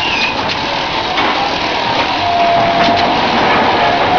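Coal bagging machine running: a steady mechanical din with scattered clicks, and a thin steady whine that comes in about halfway through.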